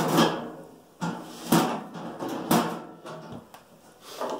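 Galvanized sheet-metal panels knocking and clanking as they are handled, a series of sharp knocks about a second apart, each with a short ringing tail.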